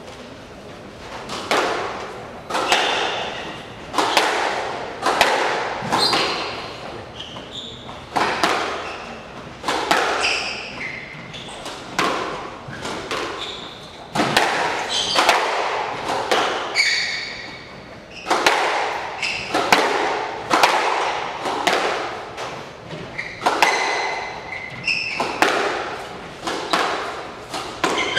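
A squash rally: the ball is struck by rackets and cracks off the court walls, with sharp echoing impacts about once a second. Short high squeaks from the players' shoes on the wooden floor sound between the shots.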